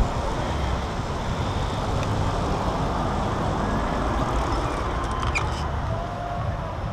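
Steady riding noise on a KTM 125 EXC two-stroke motard: wind and road noise with no clear engine note.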